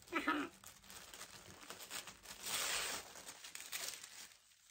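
Tissue paper crinkling and tearing as a sticker seal is pulled off and the wrapping is folded open, an irregular rustle that is loudest about two and a half seconds in.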